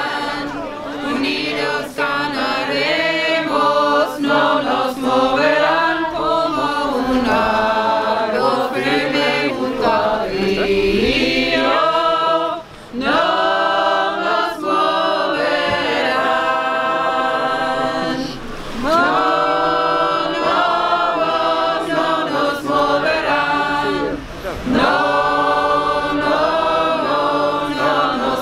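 A crowd of protesters singing a song together in long held notes, line after line, with brief pauses between phrases.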